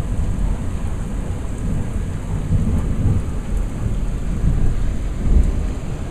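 Thunder rumbling and rolling in swells over steady rain falling in a severe thunderstorm.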